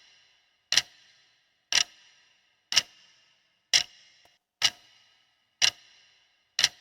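Countdown-timer sound effect ticking like a clock, one sharp tick about every second, marking the answer time of a quiz question.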